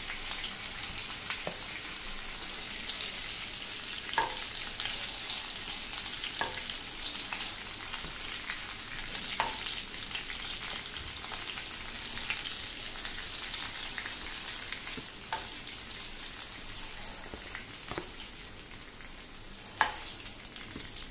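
Mutton seekh kababs sizzling in shallow oil in a frying pan, a steady hiss that fades a little toward the end. Occasional short clicks of metal tongs against the pan and plate as the kababs are lifted out.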